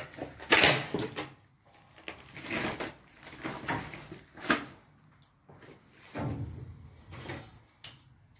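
Footsteps scuffing and scraping through debris on the floor of a cluttered room, a series of separate shuffles with a sharp knock about four and a half seconds in and small clicks near the end.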